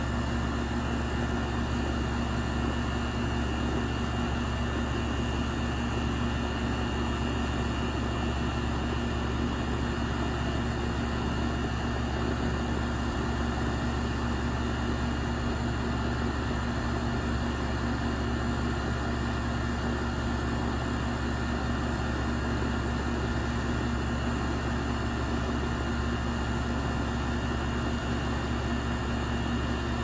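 2001 York central air conditioner's outdoor condensing unit running with its fan spinning: a steady hum with a constant tone over an even rush of air.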